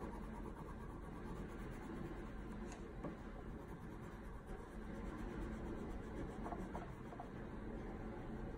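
Faint scratching of a red coloured pencil on paper as a small area of a drawing is coloured in.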